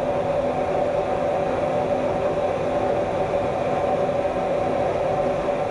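Small battery-powered blower fan running steadily, forcing air into a homemade waste-cooking-oil burner stove burning at full flame: a constant hum with the rush of the forced-air fire under it.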